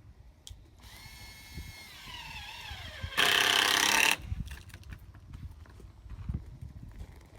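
A horse whinnying: a long, high call that wavers and falls in pitch, then breaks into a loud, harsh burst about three seconds in.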